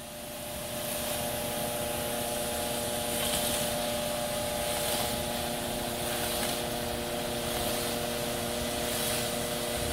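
Concrete mixer truck running steadily with a constant hum of several tones while it discharges wet concrete down its chute, with a hiss of sliding concrete.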